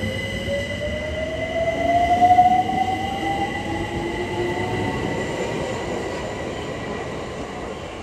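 London Overground Class 378 Electrostar electric train pulling away, its traction motors giving a rising whine that climbs steadily over the first five seconds, over a steady high tone and rumbling wheel and rail noise. The sound is loudest about two seconds in as the train passes close by.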